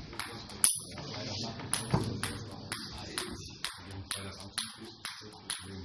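Table tennis ball bouncing repeatedly, a sharp click about twice a second.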